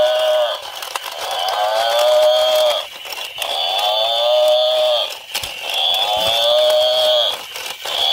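Walking toy water buffalo's built-in speaker playing a recorded moo over and over, each call about two seconds long with short gaps, three full calls and a fourth starting near the end. Light clicking from its walking gears runs underneath.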